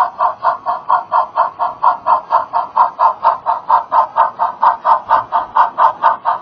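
Sound-equipped On30 model Mogul steam locomotive chuffing steadily as it runs, about five even exhaust beats a second, with the narrow, boxy tone of a small speaker.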